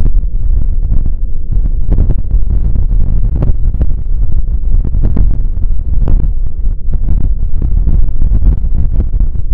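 Strong wind buffeting the microphone: a loud, low rumbling roar that surges in irregular gusts.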